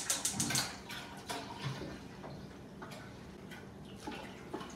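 Gas stove burner igniter clicking rapidly, lighting the burner under the pot; the clicking stops about half a second in, followed by a few faint scattered clicks and taps over a steady low hum.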